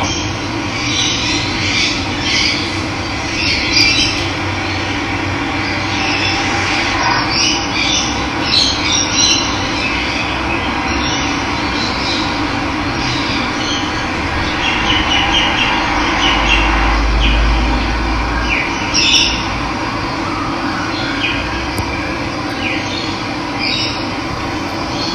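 Steady rush of running water with wild birds chirping and calling over it throughout. A brief low rumble comes about two-thirds of the way through.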